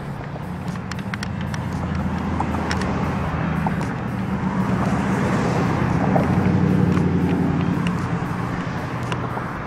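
A motor vehicle's engine running close by, growing louder through the middle and easing off near the end. Faint clicks come from a screwdriver turning screws into a plastic brake light housing.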